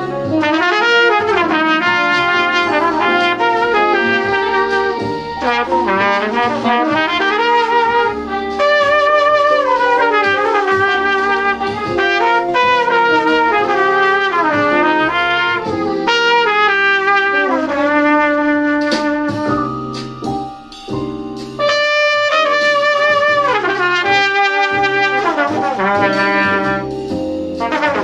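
A trumpet-family brass horn improvising a jazz solo: quick runs, bent notes and held tones, with a short break about twenty seconds in.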